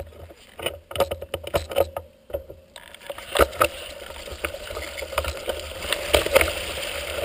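Mountain bike ridden through wet mud and puddles: scattered knocks and rattles of the bike at first, then from about three seconds in a steady hiss of tyres in wet mud, with clicks and knocks over the rough ground.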